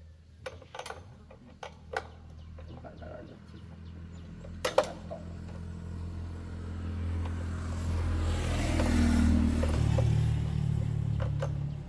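A few sharp clicks and knocks, then a motorcycle engine running and growing steadily louder over several seconds before easing slightly near the end.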